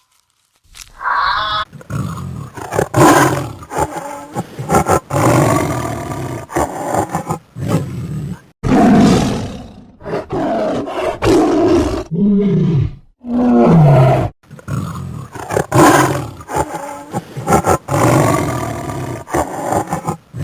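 A large wild animal roaring and growling in a run of loud, rough calls, each a second or two long, with two lower calls that fall in pitch about two-thirds of the way through.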